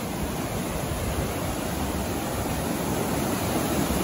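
Steady rush of a small waterfall cascading over rock into a pool, slowly growing a little louder.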